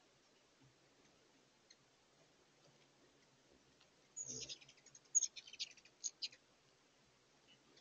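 Ruby-throated hummingbirds chittering: a quick run of sharp, high chip notes lasting about two seconds, starting a little past the middle.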